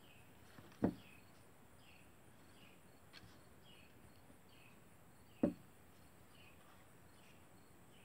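Faint outdoor background with a high chirp repeating about every three-quarters of a second, each one falling slightly in pitch. Two short thumps stand out, one about a second in and another past the halfway point.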